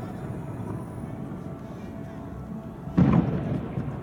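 An aerial firework shell bursting with a single loud boom about three seconds in, over music playing in the background.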